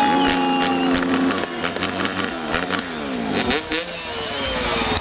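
Several motocross bike engines running together. One is held steady at high revs for about the first second and a half, then several rev up and down at once, their pitches rising and falling across one another.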